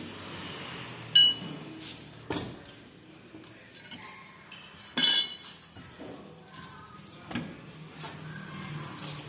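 Metal tools clinking and knocking against metal during a tyre change: two sharp ringing clinks, about a second in and about five seconds in, with a few duller knocks between them.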